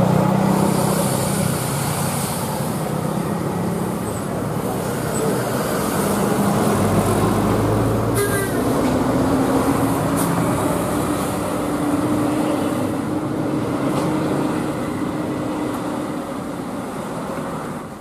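A large tour coach's diesel engine running as it rounds the bend and passes close, over steady road noise from passing motorbikes. Its low drone shifts higher about halfway through.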